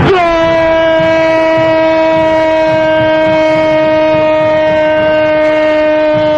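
Football radio commentator's long, loud "goooool" goal cry: one unbroken shouted note, held steady and sagging slightly in pitch.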